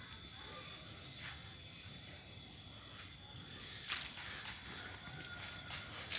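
Quiet outdoor background with a few scattered scuffs or knocks, the loudest about four seconds in.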